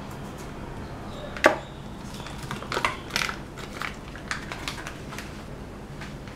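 Plastic tubes of egg tofu being handled and squeezed out over a stainless steel bowl: a sharp click about a second and a half in, then scattered crinkling and clicking of the packaging.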